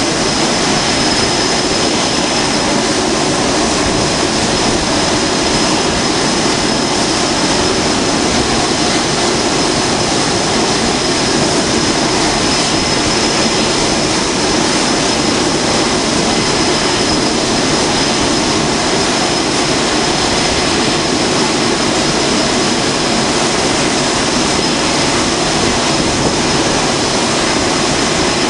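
F/A-18 jet engines running on a carrier flight deck: loud, steady jet noise with a constant high whine over it.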